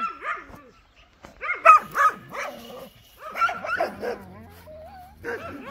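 Dog barking, a series of short barks with the loudest about one and a half seconds in.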